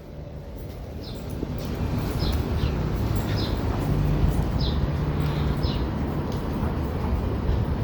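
City street traffic rumbling steadily, growing louder over the first two seconds, while a small bird chirps over it in short, falling chirps every second or so.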